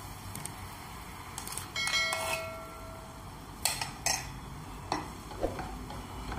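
Cookware clatter at a non-stick kadhai. About two seconds in a steel spoon clinks with a short ringing tone, then a wooden spatula knocks against the pan three or four times as the raw eggs are stirred into the masala.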